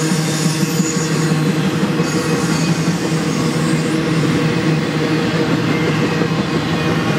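Double-stack intermodal freight cars rolling past on the rails: a steady, even rumble of wheels on track.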